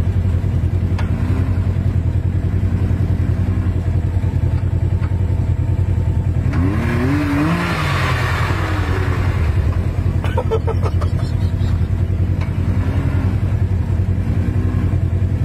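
Side-by-side UTV engine running under load, its revs repeatedly rising and falling in short pulls as the machine is worked up onto a round hay bale. The biggest rev comes about seven to eight seconds in, and there is a brief clatter of clicks a few seconds later.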